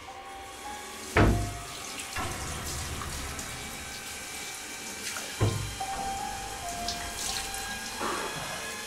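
A tap runs into a bathroom sink with steady splashing as hands and face are washed. Faint sustained music tones sit underneath, and two deep booms from the film score hit about a second in and again about five seconds in.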